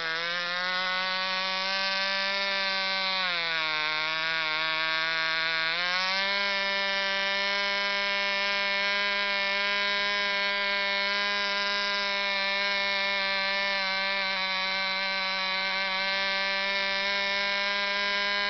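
Picco 12 Turbo model glow engine (ABC three-port, Turbo plug head) running flat out on a test stand, turning a Taipan 7x6 propeller at about 11,700 rpm: a steady, high-pitched buzz. About three seconds in the revs sag for a few seconds, then pick back up and hold steady.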